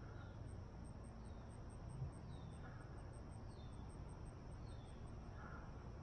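Faint summer outdoor ambience: insects chirping in a fast, even, high-pitched pulse of about five chirps a second, with a bird repeating a short falling note about once a second over a low rumble.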